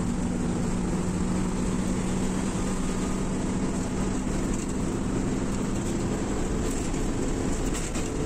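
Intercity bus running at highway speed, heard from inside the cab: a steady low engine hum over constant road and tyre noise.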